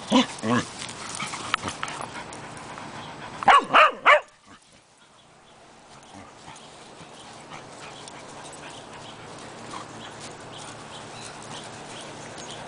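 Dogs at play: short yips right at the start, then three loud, sharp barks in quick succession about three and a half seconds in. After that it is much quieter.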